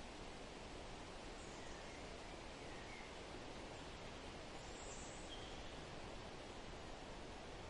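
Steady outdoor background hiss with a few faint bird chirps.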